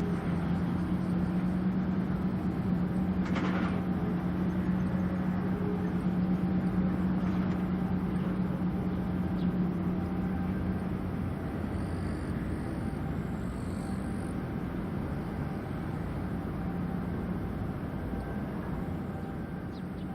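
Tugboat's diesel engine running, a steady low drone with a humming tone that fades out about halfway through.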